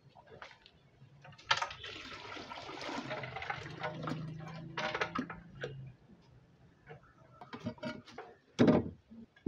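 Water poured from a container into a tank, splashing for about four seconds as guppy fry are released, followed by a few short knocks of handling.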